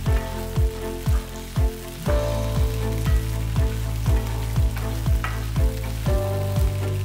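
Okra pieces frying and sizzling in oil in a pan while a wooden spatula stirs them. Background music plays over it with a steady beat of about two drum hits a second.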